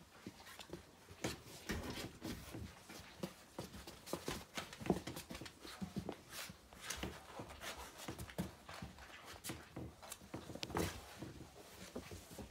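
Two puppies playing rough on carpet and a rubber door mat, their paws and claws scrabbling and landing in irregular taps and scuffs.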